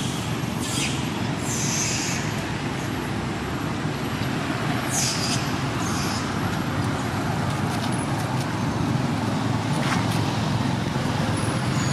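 Steady road-traffic noise from passing vehicles, with a few brief high-pitched sounds in the first half.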